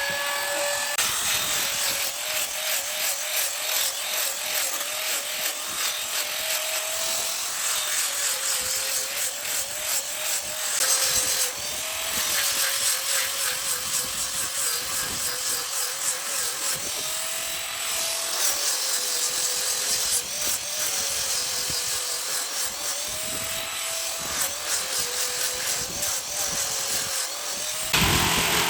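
Handheld electric power tool cutting or sanding wood, its motor whine wavering up and down in pitch as the load changes, over a steady gritty hiss. The sound changes shortly before the end.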